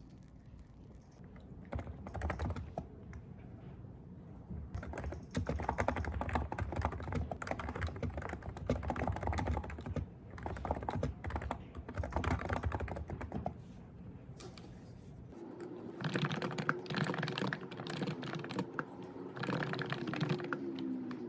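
Typing on a keyboard: quick runs of key clicks that start about two seconds in, pause briefly about two-thirds of the way through, then resume.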